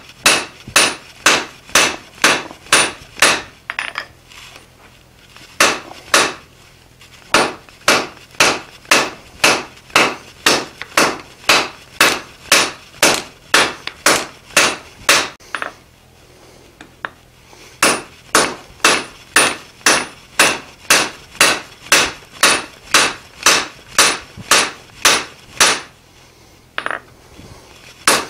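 Hand hammer striking red-hot steel bar on a 300-pound anvil, drawing the end out into a taper: a steady rhythm of sharp blows, about two to three a second, with three brief pauses.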